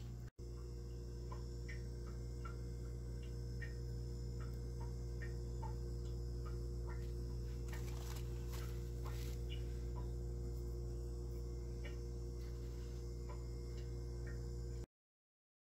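Steady low hum with scattered faint, short ticks, cutting off abruptly near the end.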